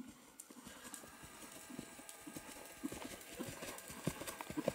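Hoofbeats of a young Friesian horse trotting under saddle on an arena's sand footing, a run of dull thuds a few per second that grow louder toward the end as the horse comes close.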